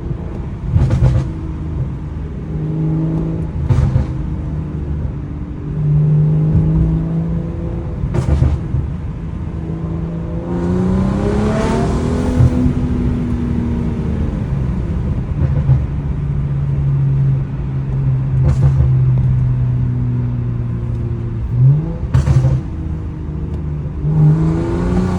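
BMW N55 turbocharged straight-six running through its exhaust, mostly at a steady engine speed with one strong rev about halfway through. Several sharp, loud exhaust bangs go off at intervals.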